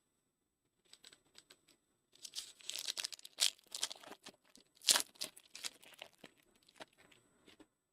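Plastic trading-card pack wrapper being torn open and crinkled: a few faint ticks, then from about two seconds in a run of crackling rips and rustles, loudest around five seconds.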